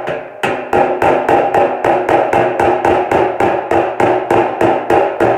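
Small hammer tapping on a dented steel hood side panel backed by a dolly, knocking down the high spots: a quick, even run of about four strikes a second, each with a metallic ring.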